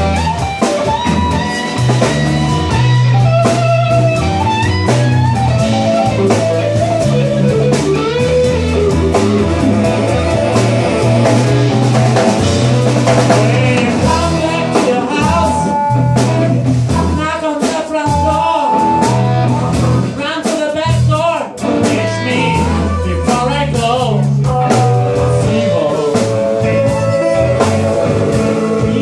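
Live blues band playing: electric guitar, bass and drum kit, with saxophone and harmonica lines over them.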